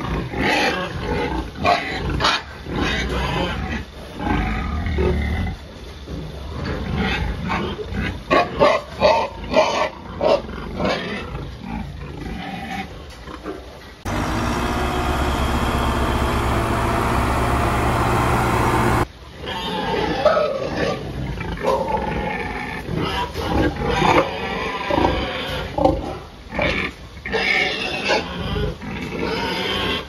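Pigs grunting and calling loudly, one call after another, in a crowded pen. In the middle, for about five seconds, this gives way to a heavy machine's engine running steadily, heard from inside its cab.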